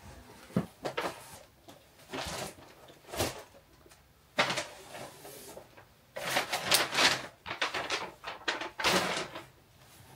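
Rustling of brown packing paper and velvet cushions being handled and pulled out of a cardboard box, coming in irregular fits and starts, busiest from about six seconds in.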